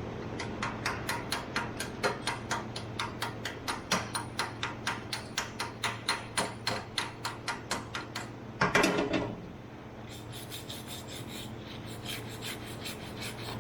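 Slag being cleaned by hand off a fresh 7018 stick weld: rhythmic scraping strokes on metal, about three a second, with a louder burst about nine seconds in. Quicker, lighter strokes follow near the end.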